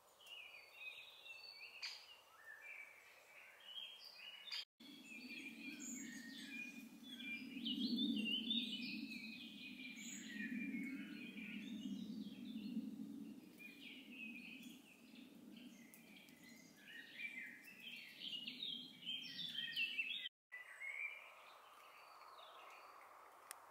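Woodland songbirds chirping and singing, with many short phrases overlapping. A steady low hum runs beneath them from about five seconds in until near the end, starting and stopping abruptly.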